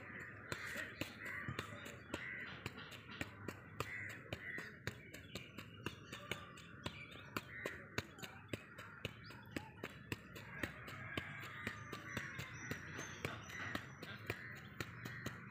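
A football being juggled with the feet: short thuds of the ball on the foot, about two or three touches a second, with a bird calling repeatedly in the background.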